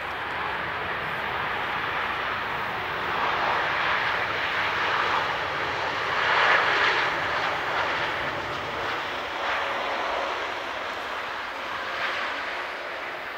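Boeing 787 Dreamliner's GE GEnx jet engines running as the airliner rolls along the runway after landing, a steady jet noise that swells to its loudest about six to seven seconds in and then eases off as it passes.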